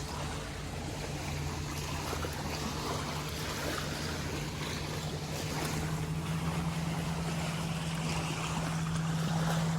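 Motorboat engine droning steadily out on the water, growing a little louder and slightly higher in pitch about halfway through, over a soft wash of wind and water.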